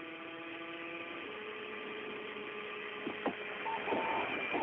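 Steady electrical hum on a narrowband radio communications channel. The pitch steps up about a second in, a couple of clicks follow, and short higher beeps come near the end.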